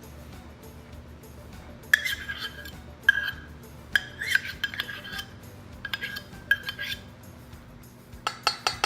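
A spoon scraping and clinking against a measuring cup and bowl as sticky school glue is scooped out. There are a few sharp ringing clinks about a second apart, then a quick run of light taps near the end.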